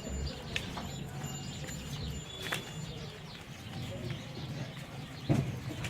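Goat-pen ambience with a steady low hum, a few brief high bird chirps and scattered knocks, with one sharper knock near the end.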